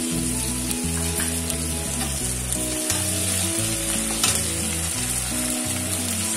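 Onions, green chillies and ginger-garlic and cumin pastes sizzling in oil in a nonstick wok, stirred with a steel spatula that scrapes and gives a few sharp taps against the pan.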